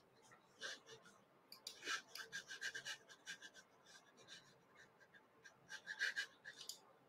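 Faint, short scratching and rubbing strokes of a stylus on a tablet screen, erasing handwritten ink. The strokes come in a quick cluster around two seconds in and again near six seconds.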